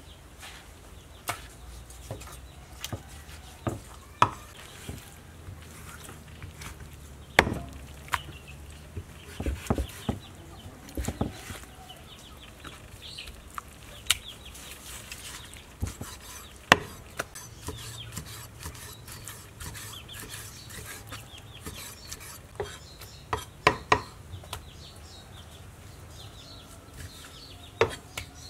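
Cleaver cutting pork belly on a thick round wooden chopping block: irregular sharp knocks of the blade on the wood, some coming in quick clusters.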